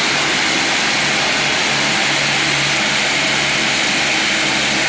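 Silage baling machine running steadily: a loud, even mechanical rush with a constant low hum underneath.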